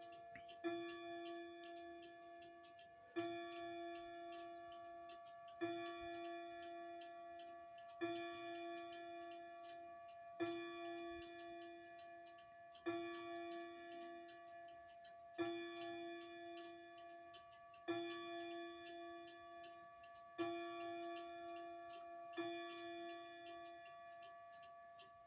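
General Electric Model 376 New Rhapsody chime clock striking the hour on its replacement chime rods. One low ringing tone is struck ten times, about every two and a half seconds, each one dying away before the next.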